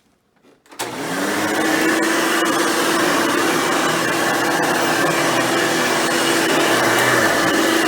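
Hoover Futura Dimension upright vacuum cleaner switched on just under a second in, its motor spinning up to a steady run with a held hum.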